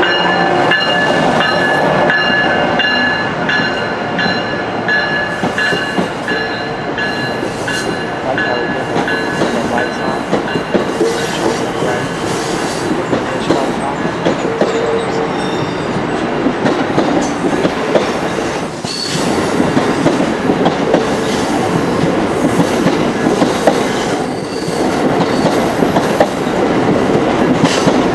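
Amtrak Regional passenger train departing and passing close by: the electric locomotive goes by first with a steady whine, then the passenger cars roll past with wheel clicks and clatter. A thin, very high wheel squeal sounds near the end.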